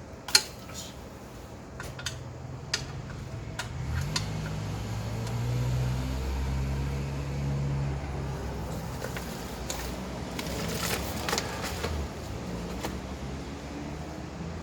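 A few sharp clicks and knocks, then a low motor-vehicle engine running steadily from about four seconds in until it drops away about twelve seconds in.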